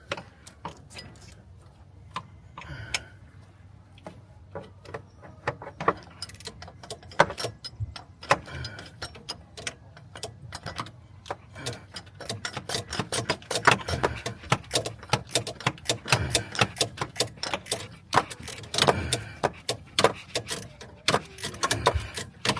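Hand ratchet clicking as it is worked in short strokes to turn out an AC compressor mounting bolt. The clicks are sparse at first and come thick and fast from about halfway through.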